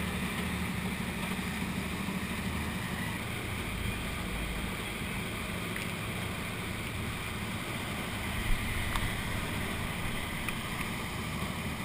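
Motorboat running at speed, its wake rushing and churning along the hull, with wind on the microphone. A single brief thump about eight and a half seconds in.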